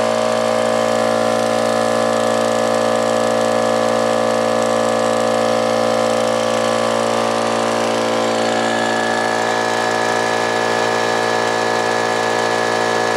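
Brute 10-gallon, 2.5 HP air compressor running steadily, its motor and pump filling the tank with air.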